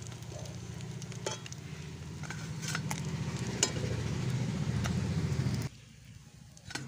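Rui fish steaks frying in hot oil in a kadai, sizzling with scattered sharp crackles and the scrape of a metal spatula moving the pieces, over a steady low hum. The sound cuts off abruptly near the end.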